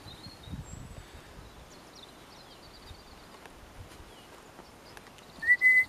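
Quiet open-field background with faint bird chirps, then near the end a short, loud whistle that rises and then holds one pitch.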